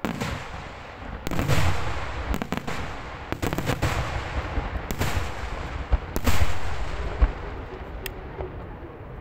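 Fireworks going off: a run of loud bangs a second or two apart, each dying away in a long rolling echo, with smaller cracks in between, thinning out near the end.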